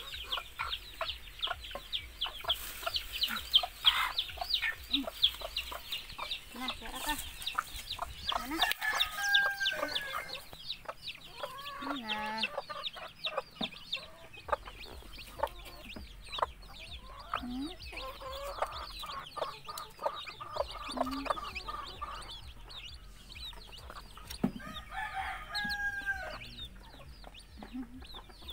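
A brood of native chicks peeping continuously in quick high notes, with a hen clucking low now and then and a few longer, higher calls from adult chickens about a third of the way in and again near the end.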